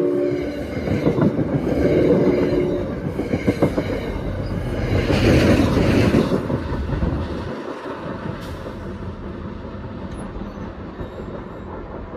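Commuter train passing close by. A horn blast cuts off in the first half-second, followed by steel wheels clattering and clicking over the rails as the coaches go by. The EMD F40PH-2CAT diesel locomotive pushing at the rear passes about five to six seconds in, the loudest part, and then the sound fades as the train moves away.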